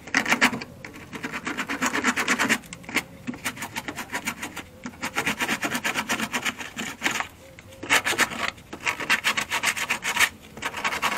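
Rapid back-and-forth hand-sanding of the rusty steel underbody of a Mazda MX-5 NB with a small abrasive pad, in about four bouts with short pauses between. This is the surface being scuffed clean of rust before anti-rust treatment.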